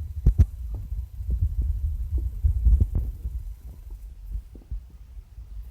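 Low rumbling handling noise with irregular soft knocks and thuds; the strongest come just after the start and about three seconds in, and the sound grows quieter near the end.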